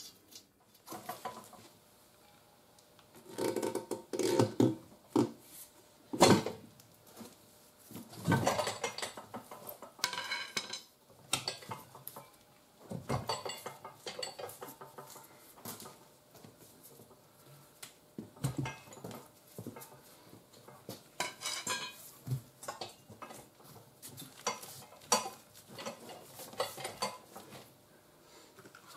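Irregular metal clanks, knocks and scrapes as a steel tire bar levers a new tire's bead over an alloy wheel rim on a manual tire changer. The loudest knocks come about four to six seconds in and again around eight seconds.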